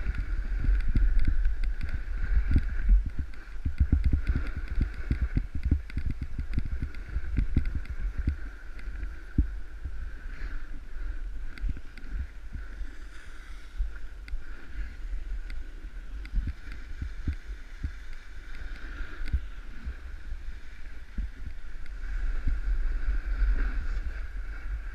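Snowboard sliding and scraping over snow, picked up by a camera worn by the rider: a constant low rumble with many small knocks and jolts, over a faint steady high hum.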